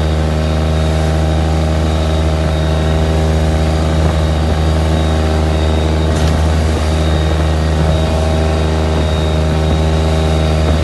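A fishing boat's engine running steadily under way, over a hiss of wind and water as the bow cuts through rough sea.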